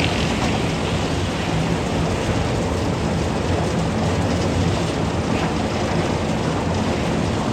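Concrete mixer running steadily: a constant low engine hum under a dense, even rumble.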